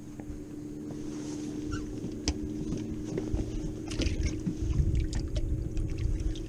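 Steady hum of a boat motor at trolling speed. Over it come knocks and water splashing as a fish is put into the livewell, loudest about four to six seconds in.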